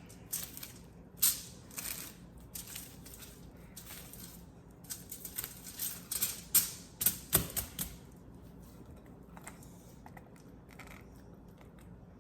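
Wrapping crinkling and crackling in irregular clicks as a log of lazy cake mixture is rolled and shaped by hand; the sounds crowd together in the first two-thirds and then thin out.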